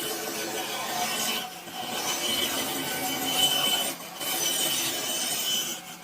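Continuous scraping or rasping of a tool working material, broken by short dips about one and a half and four seconds in.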